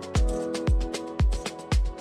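Background music with a steady kick-drum beat, about two beats a second, and sustained chords over it.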